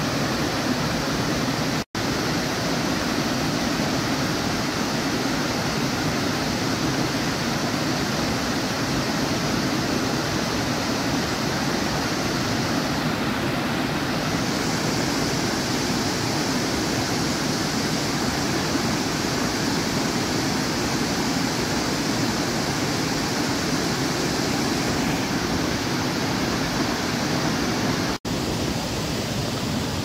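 Small waterfall cascading over stepped rock ledges: a steady rush of falling water that cuts out for an instant twice, about two seconds in and near the end.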